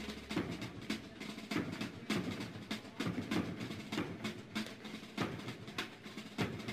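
Instrumental music without singing: snare drum strikes and rolls in a dense, uneven drum rhythm.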